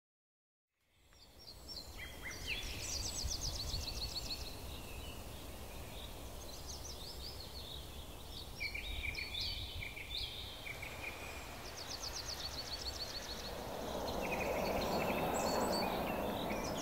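Outdoor ambience of several birds singing and chirping in quick trills over a low steady rumble, fading in about a second in. A broad rushing noise swells for a couple of seconds near the end.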